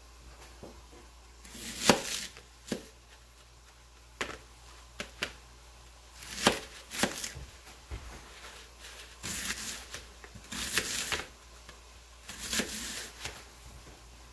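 Ka-Bar Becker BK15 fixed-blade knife cutting an onion on a plastic plate. Irregular crisp slicing strokes and sharp knocks of the blade on the plate come a second or so apart, with the loudest cut about two seconds in.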